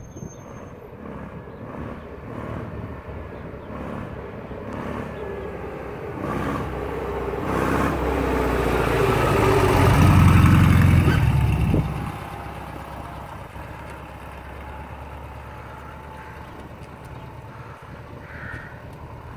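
Air-cooled Volkswagen flat-four engine of a VW-powered Ed Roth trike, running as the trike rides up, passes close by and rides away. It grows steadily louder, is loudest about ten seconds in, and drops off sharply a second or two later.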